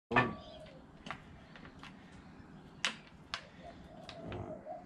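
Sharp clicks and taps of a screwdriver and hands working on a removed plastic headlight housing, a handful of separate clicks with the loudest right at the start.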